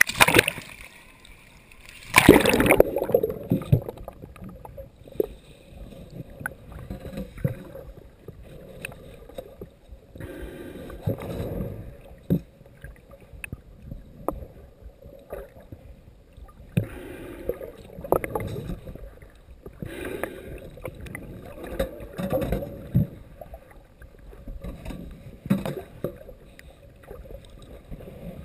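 Muffled underwater noise of seawater surging around a camera held beneath the surface, swelling and fading every couple of seconds with scattered small clicks and knocks. A loud splashing rush about two seconds in as the camera goes under.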